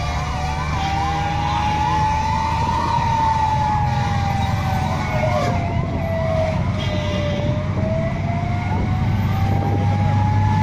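Fire engine sirens. A slow wail rises and falls over several seconds, while a second, faster yelping siren sweeps up and down about twice a second for the first half, over a low rumble of engines and road traffic.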